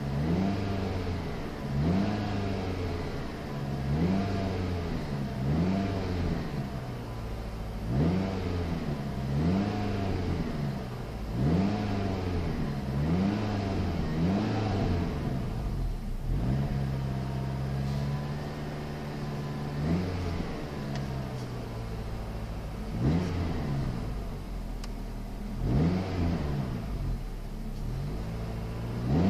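Pontiac Sunfire's four-cylinder engine revved while the car stands still, heard from inside the cabin. It gives repeated quick blips of the throttle, rising and falling about once a second, then holds a steady higher rev for a few seconds about halfway through, then goes back to blips.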